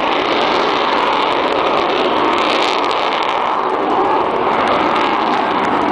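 Avro Vulcan's four Rolls-Royce Olympus jet engines running at high power as the bomber starts its take-off: a loud, steady jet noise.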